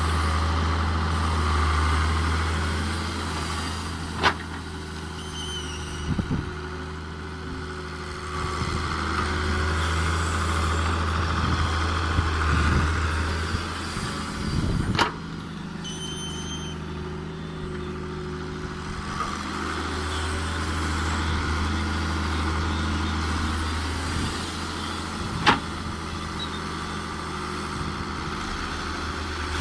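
Diesel engines of a wheeled excavator and a tractor running steadily at work while sand is dug and loaded, with three sharp knocks, about ten seconds apart, once per dig-and-dump cycle.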